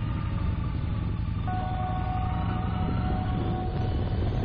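Motorcycle engine running at road speed, a steady low rumble mixed with wind, with a few held tones over it from about a second and a half in.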